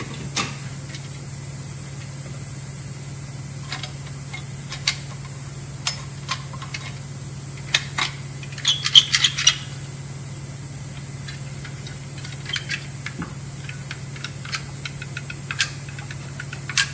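Scattered clicks and clacks from a manual caulking gun as its trigger is worked to lay a bead of silicone on the wheel-well metal, with a quick cluster of clicks about nine seconds in. A steady low hum runs underneath.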